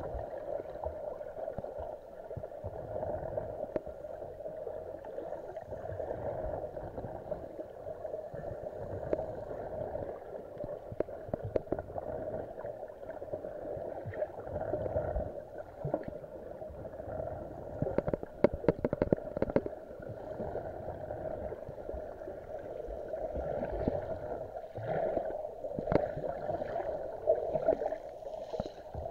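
Muffled underwater ambience heard through a submerged camera: a steady, dull water hiss and swash. A quick run of sharp clicks comes about eighteen to twenty seconds in.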